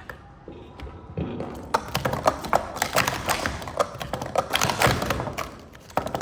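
Plastic sport-stacking cups being rapidly stacked and unstacked: a quick, uneven run of light clacks and taps that starts about a second in and dies away near the end.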